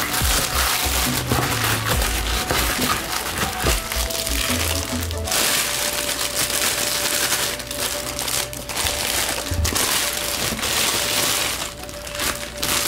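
Clear plastic wrap crinkling in stretches as hands pull and handle it around a boxed replica sword, with background music underneath.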